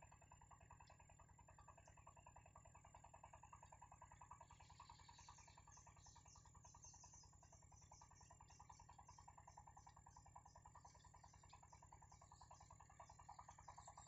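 Very faint insect chorus: a steady, rapidly pulsing buzz, joined about four and a half seconds in by a fast run of high chirping.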